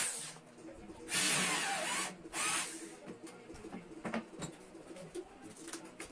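Power drill driving screws into cabinet parts: three short runs of whine, changing in pitch, in the first three seconds, then light clicks and knocks as the work is handled.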